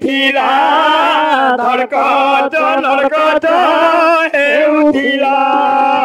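Man singing a chant-like melody in long, wavering phrases, with brief breaks between them.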